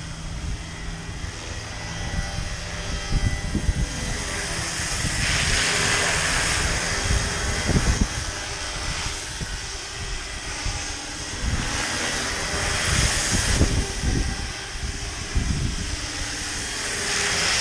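Roban Black Hawk 700-size RC scale helicopter in flight, its rotor and drive whine swelling and fading several times as it moves about. Wind buffets the microphone with low rumbling gusts.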